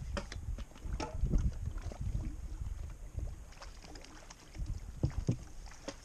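Wind rumbling on the microphone and water lapping on choppy open water, with scattered light clicks and knocks.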